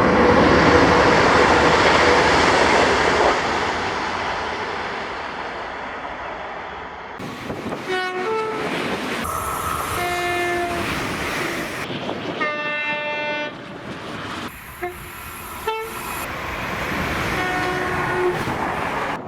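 Train passing with loud rumbling rail noise that slowly fades, then a string of separate train horn blasts, each several seconds or less, broken up by abrupt changes in the background noise.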